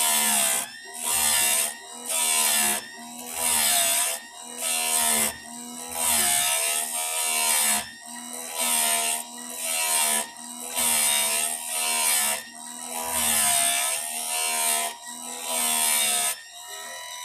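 Chicago Electric electric chainsaw chain sharpener's grinding wheel brought down onto the chain's teeth again and again, about one short grinding pass a second, the motor's hum dipping in pitch under the load of each pass. It is grinding an edge back onto the cutters of a dull Craftsman saw chain.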